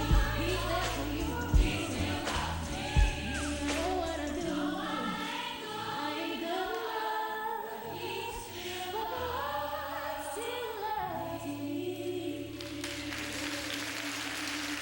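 Gospel choir singing with instrumental backing, with a few heavy low thumps in the first three seconds. Near the end the singing thins to a held note over applause.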